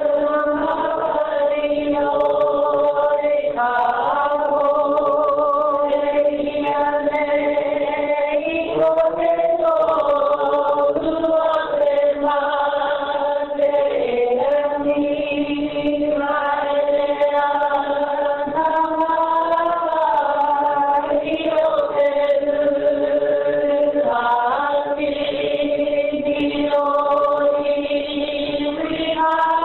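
Group of voices chanting a Māori mōteatea in unison. Long notes are held on a nearly level pitch with small wavers, dipping briefly at phrase ends, with short breaks between phrases.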